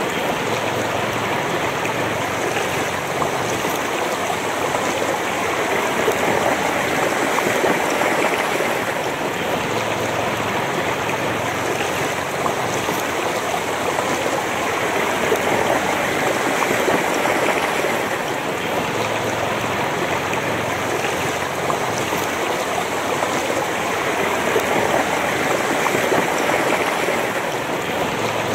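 Shallow, fast-flowing rocky river running over stones: a steady rush and babble of moving water, heard close to the surface, with slow, slight swells in loudness.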